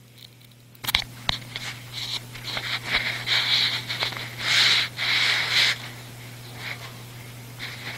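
Two knocks on or near a laptop webcam microphone about a second in, then a series of short hissing bursts close to the microphone, over a steady low electrical hum.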